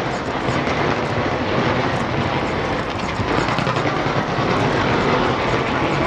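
Dense fireworks barrage, many bursts blending into a continuous rumbling roar with scattered crackles.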